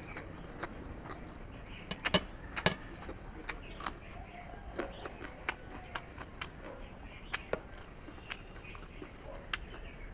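Close-miked chewing of a mouthful of rice and pork eaten by hand, with irregular wet mouth clicks and smacks, the loudest two about two seconds in.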